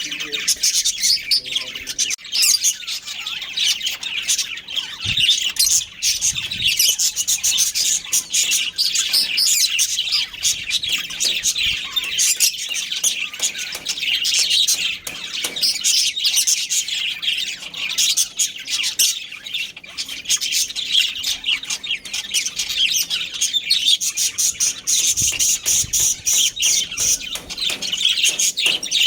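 Budgerigars chirping and chattering without a break, many rapid high-pitched chirps overlapping in a dense warble.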